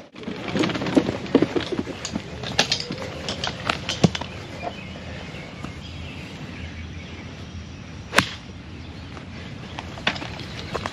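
Irregular clicks and knocks from a speedgolfer on the move with clubs, with one sharp crack about eight seconds in.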